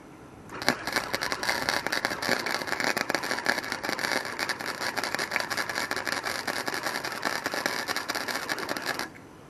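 Wire-feed welder arc crackling steadily as a bead is run on a piece of steel exhaust pipe held in a vise. It starts about half a second in and cuts off shortly before the end.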